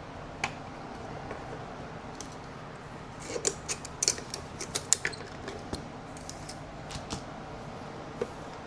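Light clicks and taps of the blender's plastic parts being handled and fitted back together during reassembly, scattered at first and coming in a quick cluster about three to five seconds in, over a steady background hum.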